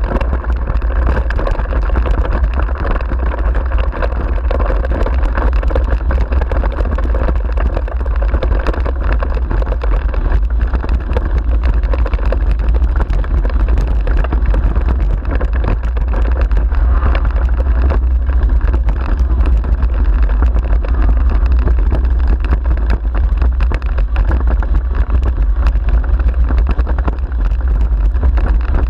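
Steady rush of wind on the microphone, with the low rumble of a dog-pulled rig's wheels rolling over a rough forest track.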